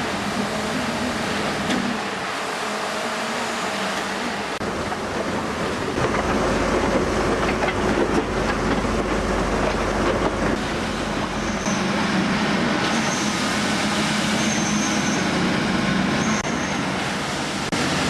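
Steady heavy machinery and vehicle noise, with a deep rumble that swells for several seconds around the middle. Later come four short, high squeals.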